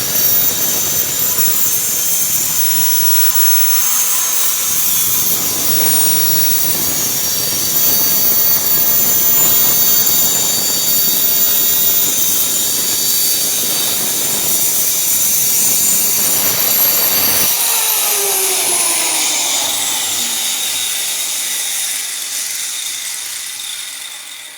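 High-speed woodworking power tool motor running steadily with a high whine. About two-thirds of the way through it is switched off and spins down in falling pitch, fading out near the end.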